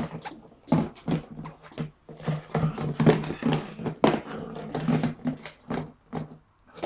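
A puppy playing with a plastic watering can on a wooden floor: a fast, irregular run of knocks and clatters as the can is pushed and bumped about.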